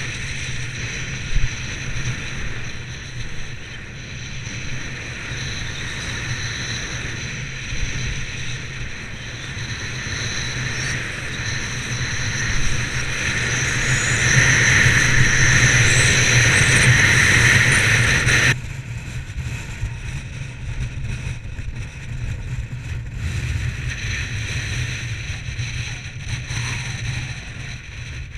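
Wind rushing over a skier's camera microphone while skis slide and scrape on hard-packed snow during a downhill run, growing louder as speed builds, then dropping suddenly about two-thirds of the way through.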